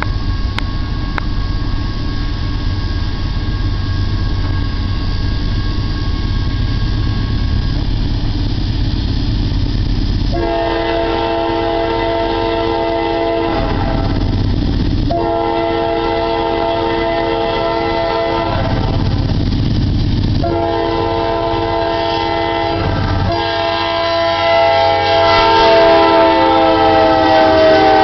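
Norfolk Southern GE Dash 9-40CW diesel locomotives on a loaded coal train: a low rumble as they approach, then the lead unit's Nathan K5LA five-chime horn blowing four blasts, long, long, short, long, the grade-crossing signal. The last blast is held and is the loudest as the locomotive draws level, its pitch dropping slightly as it passes.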